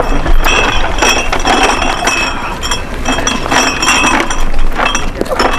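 Glass beer bottles clinking and rattling against each other in a plastic crate as it is carried, in repeated bursts of ringing clinks.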